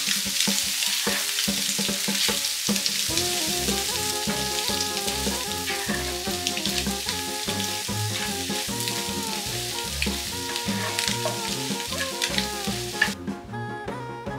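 Chopped boiled eggs and masala sizzling in a frying pan while a wooden spatula stirs and scrapes through them. Background music with a bass beat comes in about three seconds in. The sizzling cuts off near the end, leaving the music.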